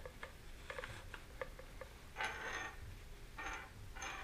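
Faint handling noise of a rocket's recovery gear: a few light clicks and taps, then several short rustles as the fabric heat shield and the shock cord are pushed into and drawn around the rocket's body tube.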